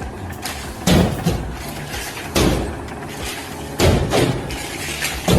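Heavy bangs, one about every second and a half, four in all, over a steady low background noise.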